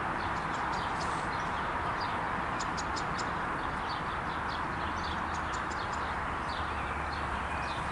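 Steady outdoor background hiss with small birds chirping now and then in short, high bursts, most around three seconds in and again about five to six seconds in.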